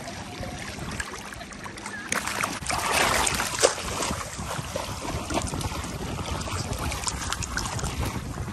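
Choppy water splashing and sloshing right at the microphone, with wind buffeting it. There is a sharp slap about three and a half seconds in.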